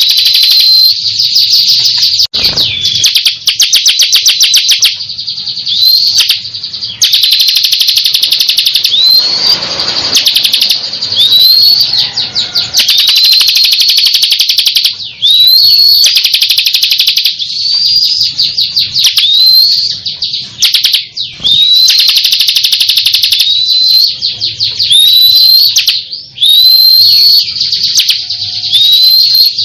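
Bar-winged prinia (ciblek) singing continuously: high, rapid trills alternating with short rising whistled notes repeated every second or two.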